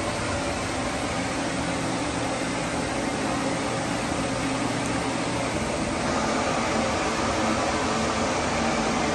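Steady whir of a ventilation fan with a low hum, growing slightly louder about six seconds in.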